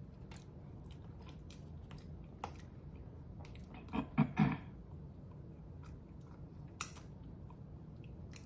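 Close-miked chewing and mouth sounds of someone eating king crab meat, with scattered small clicks and a brief louder burst of sound about four seconds in.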